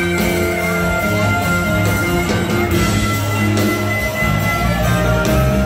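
Live rock band playing loud with electric guitars, bass guitar and drum kit, heard from the audience in a concert hall. Long held high notes over the band come from the frontman's harmonica.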